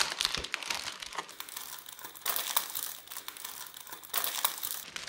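Thin clear plastic sheet crinkling and crackling as it is pulled and peeled away from cast resin, in bursts, louder about two seconds in and again near the end.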